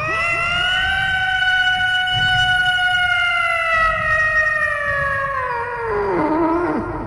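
A cat's single long drawn-out meow, held for about six seconds, its pitch slowly falling before it drops low and trails off near the end.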